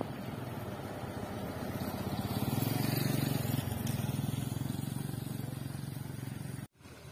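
Motorcycle and heavy truck engines running on a dirt road: a steady low drone that swells about two seconds in, then cuts off abruptly near the end.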